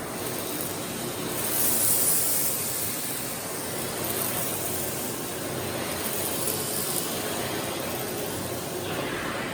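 Philips PowerPro FC9352/01 compact bagless vacuum cleaner running steadily with a hissing rush of air. The hiss swells louder and brighter for about a second, around two seconds in.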